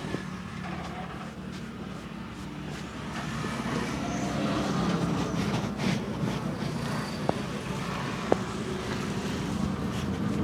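Steady road traffic rumble, with a few short, sharp clicks in the second half.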